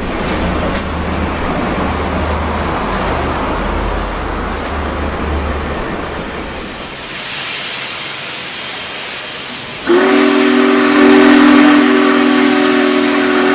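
Passenger cars rolling past on the rails with a steady rumble, giving way to a hiss; about ten seconds in, the steam whistle of Union Pacific Big Boy 4014 blows one long, loud chord.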